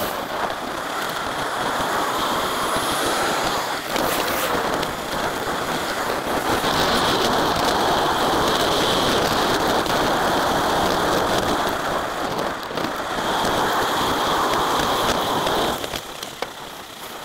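Steady rushing wind and road noise from a moving camera, played speeded up, easing off near the end.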